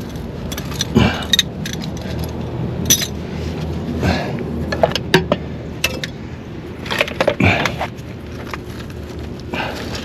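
Metal hand tools clinking and clattering as they are gathered up, a scatter of irregular clicks and knocks.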